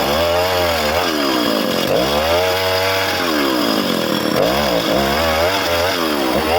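Chainsaw cutting wood, its engine running loud and steady with the pitch dropping and rising again several times as the chain works through the cut.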